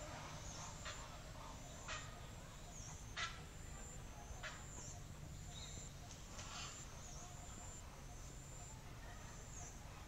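Faint, scattered harsh squawks from egrets at a nesting colony, with a thin, high whistled note that dips and rises about every two seconds.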